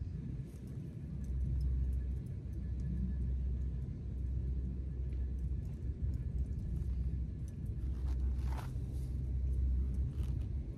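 Wind buffeting the microphone outdoors: an uneven low rumble that swells and dips, with a short rustle about eight and a half seconds in.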